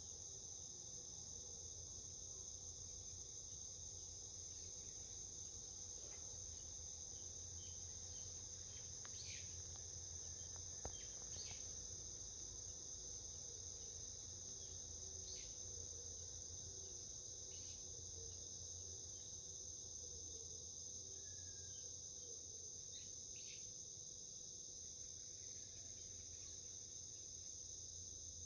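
A steady, high-pitched chorus of crickets trilling without a break, with a few short high chirps scattered through it.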